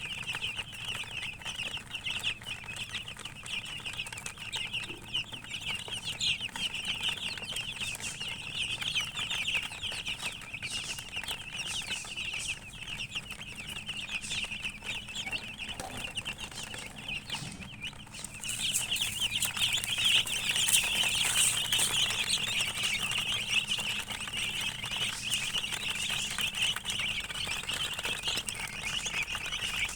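A crowd of baby chicks cheeping non-stop, many short high peeps overlapping into one continuous chorus that grows louder about two-thirds of the way through.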